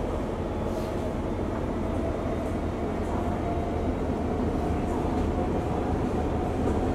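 Singapore MRT train running, heard inside the carriage: a steady low rumble and rail noise with a faint whine.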